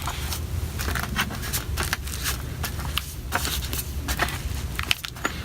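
A MacBook Pro's aluminium bottom cover being handled and fitted back onto the laptop: scattered scrapes and light clicks of metal over a low steady hum.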